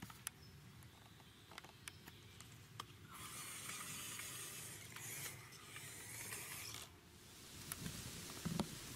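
Small RC crawler's 370 electric motor and gearbox running in two spells of a few seconds each, with scattered light clicks as it crawls over bark and roots.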